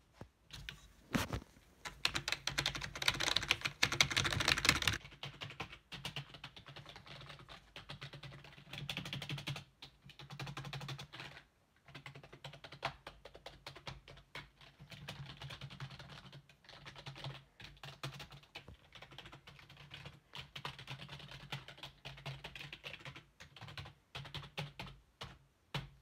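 Corsair K55 membrane keyboard being typed on: a dense, loud run of keystrokes a couple of seconds in, then further runs of typing broken by short pauses.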